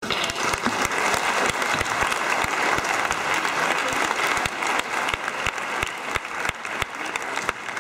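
Audience applauding, with single sharp claps standing out; the applause eases off somewhat over the last two seconds.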